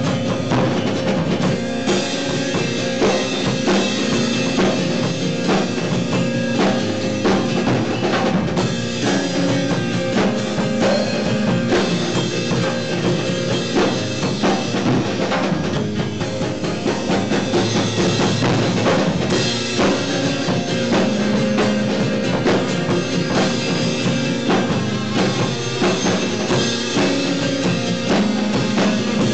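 A live rock band playing: a drum kit with bass drum and snare, driving the music over acoustic guitar.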